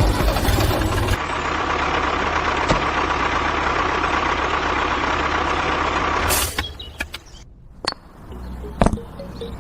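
A small motor runs steadily for about five seconds, then cuts off abruptly, followed by a few sharp clicks.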